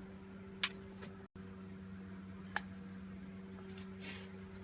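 A few light, sharp metallic clicks from scrap metal parts and hand tools being handled, over a steady electrical hum.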